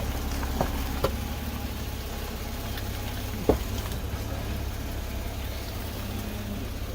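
A Jeep driving with a steady low engine and road rumble, and a few short knocks, the loudest about three and a half seconds in.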